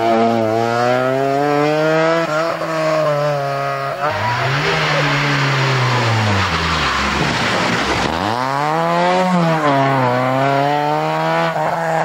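Rally car engines at full throttle. The first climbs in pitch through a gear change about two seconds in. A second car, an Opel Kadett, comes in with its engine dropping as it lifts off for a bend, then revs hard up again through another gear change near the end, with some tyre noise.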